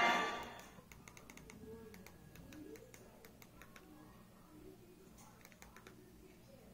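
The last of a studio logo's orchestral fanfare cuts off within the first second. Then a string of short, soft clicks from TV remote buttons being pressed to move through a search menu, with a faint voice in the room.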